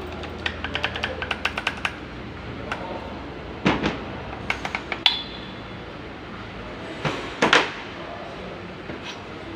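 Metal tools and engine parts being handled during an engine teardown: a quick run of about ten light clicks, then several sharp metal knocks and clinks, one leaving a short high ring.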